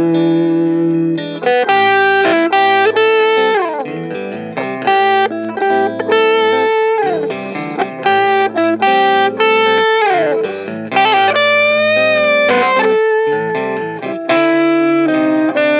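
Fender Stratocaster electric guitar played through a Fender Blues Jr valve amp: a melodic lead line of single picked notes, with a few downward slides and a note held with vibrato near the end.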